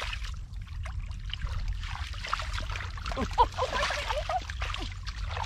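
Hands splashing and sloshing in shallow muddy water, an uneven run of trickling and splashing with one sharper splash about three and a half seconds in.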